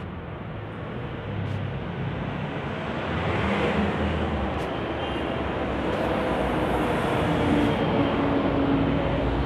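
Road traffic from a busy street, a steady rumble of passing vehicles that grows louder about three seconds in, with an engine's hum standing out in the second half.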